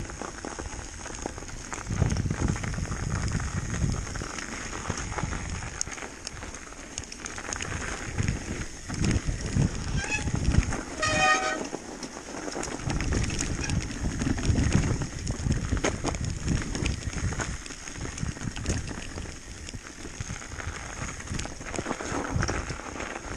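Mountain bike descending a snowy trail, heard from a helmet camera: wind buffeting the microphone in irregular rumbling gusts, with the bike knocking and rattling over bumps. A short high squeal sounds about halfway through.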